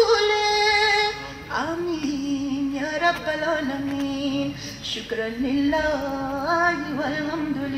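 A solo singing voice holding slow, long notes, with short ornamented turns and slides between them.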